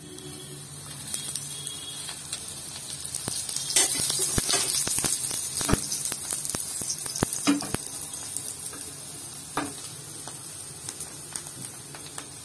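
Oil poured around an urad dal adai on a hot tawa sizzling. The sizzle swells over the first few seconds with scattered sharp crackles and pops, then settles into a steadier, slowly fading sizzle as the adai fries.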